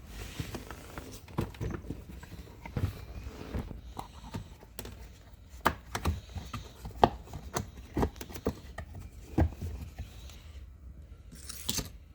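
Gear lever of a BMW Z3 with a newly fitted E36 short shifter being moved through the gears, giving a series of irregular clicks and clunks. A short hissing noise comes near the end.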